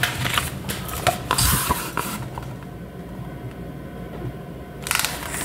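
Pages of a large picture book rustling and the book being handled close to a desk microphone, with scattered clicks and taps in the first two seconds, a quieter stretch, and another rustle near the end.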